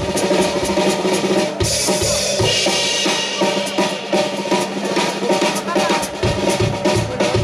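Live band playing an instrumental intro, with the drum kit loudest: a steady bass-drum and snare beat, and a cymbal wash about two seconds in, over electric guitar and upright double bass.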